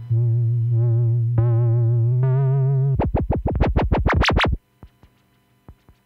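Roland Boutique analogue-style synthesizer holding a low bass note whose upper tones waver slowly in pitch, stepping up twice. It then breaks into a fast run of short stabs that get brighter before cutting off suddenly about four and a half seconds in. A few faint clicks follow.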